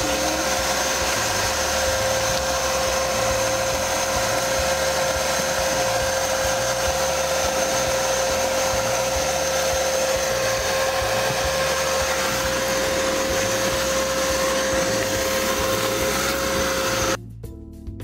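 Ridgid WD3050 3-gallon wet/dry shop vac running steadily with a constant whine as its nozzle sucks up wood chips and dirt from carpet. It cuts off abruptly near the end, leaving background music.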